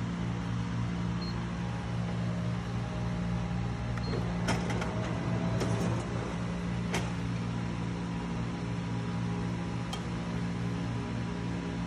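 Riso digital duplicator running with a steady machine hum. A cluster of clicks and clatter comes about four to seven seconds in, and one more click near ten seconds.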